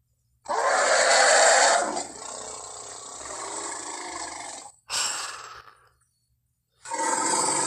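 Triceratops creature sound effects: a loud, rough call about half a second in that holds for about a second and a half, then trails off more quietly for nearly three seconds. A short call follows around five seconds in, and another loud call begins near the end.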